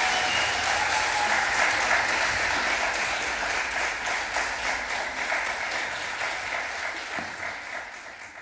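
Concert audience applauding, steadily growing quieter and fading out at the end.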